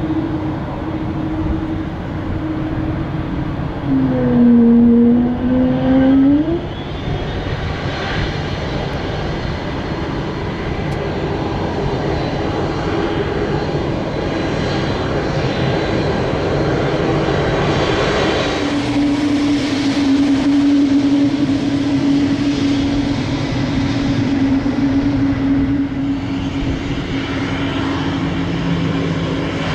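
Jet airliner engines running close by: an even jet rush with a steady held tone that steps slightly lower in pitch a little past halfway. About four seconds in, a short loud tone dips and then rises in pitch. In the second half the jet noise grows fuller and louder as a landing airliner comes in.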